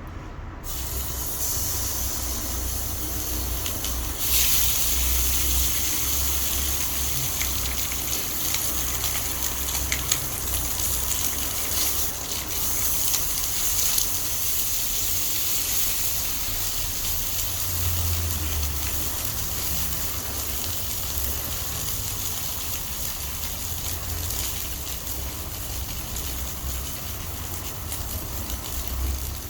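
Beef rib roast sizzling in an iron frying pan over a wood fire: a steady hiss that starts just after the beginning and gets louder about four seconds in.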